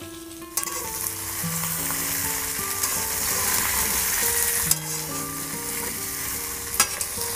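Yellow cauliflower florets sizzling in hot oil and spices in a metal kadai as they are stirred and turned with a wooden spatula. The sizzle swells about half a second in, and the spatula knocks sharply against the pan a couple of times.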